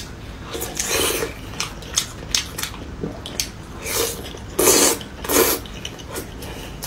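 A person eating close to the microphone: wet chewing and smacking in short irregular bursts, the loudest two a little past the middle, with scattered small clicks.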